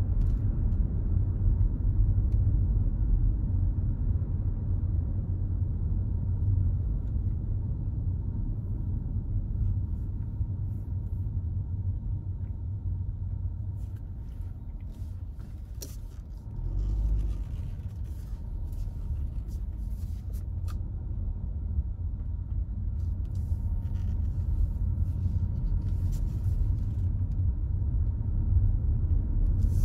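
Road noise inside a moving car: a steady low rumble of tyres and engine. It eases a little about halfway, then picks up again, with a few faint clicks in between.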